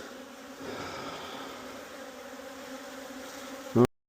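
Honey bees buzzing around an open hive in a steady hum, swelling slightly about half a second in. Near the end a brief, loud sound sweeps upward in pitch, and then the sound cuts off abruptly.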